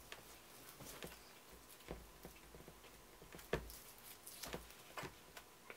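Faint, irregular ticks and clicks from a knife trimming sinew off an elk backstrap on a wooden cutting board. The loudest click comes about three and a half seconds in.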